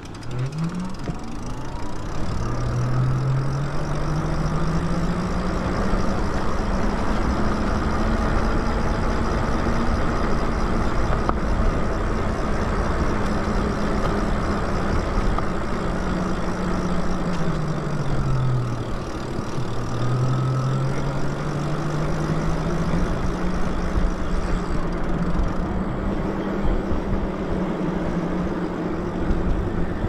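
Electric bike riding along a road: a low hum that climbs in pitch as the bike speeds up, holds steady, drops as it slows about two-thirds of the way through, climbs again and falls near the end. Heavy wind rumble on the microphone runs under it.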